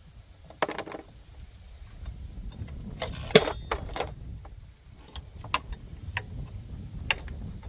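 Metal tools and parts clinking and knocking during hand work on an ATV's CV axle and hub: scattered sharp clicks, with one loud ringing metallic clink a little over three seconds in.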